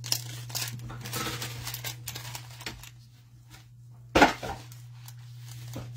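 Trading card box and packs being handled on a table: light rustling and small clicks, with one sharp knock about four seconds in, over a steady low electrical hum.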